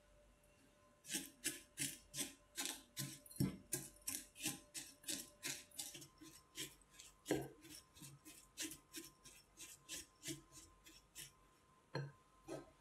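Silicone spatula stirring and pressing buttered Marie biscuit crumbs against a glass bowl: a regular scratchy scraping, about three strokes a second. After a short pause near the end come two more strokes.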